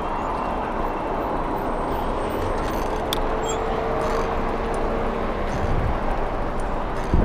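Steady street traffic and road noise heard while riding a bicycle, with a short low thump near the end.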